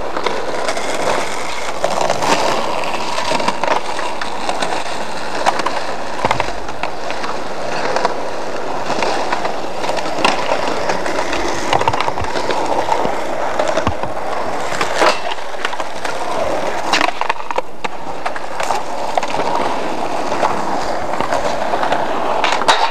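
Skateboard wheels rolling on concrete, a steady rumble broken many times by sharp clacks of boards hitting the ground.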